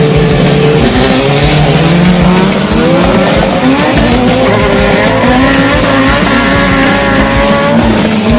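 Drag cars accelerating hard, their engine pitch rising again and again as they run up through the gears.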